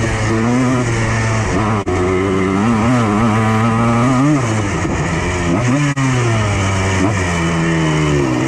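Yamaha Blaster's two-stroke single-cylinder engine running under throttle, its pitch rising and falling as it is revved and let off. It cuts out for an instant twice.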